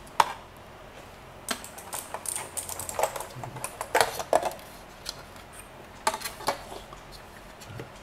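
Scattered plastic clicks and knocks as a clip-on plastic wrist rest is handled and pushed into the slots on the front edge of a mechanical keyboard, with the keyboard knocking about as it is turned over.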